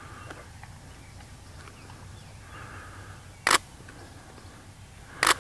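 DSLR camera shutter firing twice, about two seconds apart, each a short sharp click, over faint outdoor background sound.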